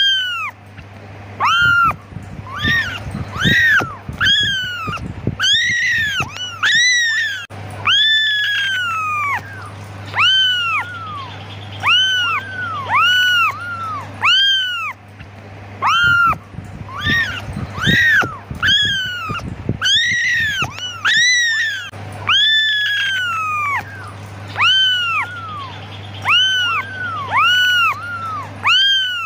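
Young kittens meowing over and over, high thin cries that rise and fall in pitch, about one a second and overlapping in places: newborn kittens calling for their mother.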